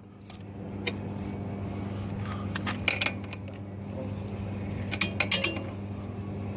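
Ratcheting combination wrench working a bolt: scattered sharp metallic clicks and clinks of the tool on the bolt, with a quick run of clicks about five seconds in, over a steady low hum.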